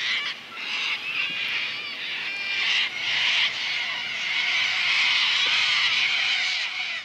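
A dense chorus of many small birds calling and trilling over one another, with no single call standing out.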